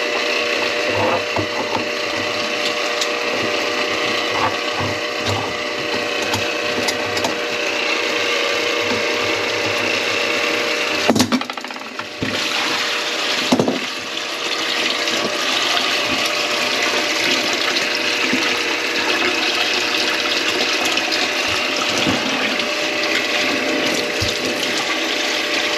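Steady mechanical running noise mixed with water, from clearing a grease-clogged kitchen sink drain line. A hum under it fades about eleven seconds in, and two sharp knocks follow about two seconds apart.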